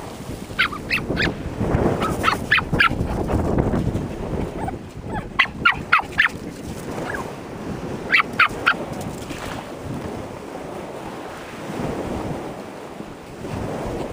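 Waves washing up over a pebble beach, with four groups of three or four short, high calls repeated through the wash; the loudest group comes about midway.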